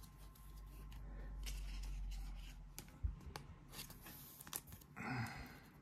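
Faint handling of a Pokémon trading card and a thin clear plastic card sleeve: soft crinkling and rustling, with a few small clicks.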